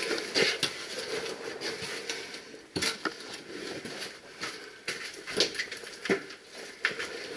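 A caver's handling and movement noise: a soft rustle broken by a handful of sharp clicks and knocks, the loudest about three seconds in.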